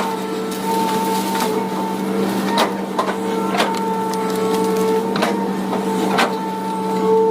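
Hydraulic excavator running steadily at working revs, a constant hum with a whine over it, and several sharp knocks as it works.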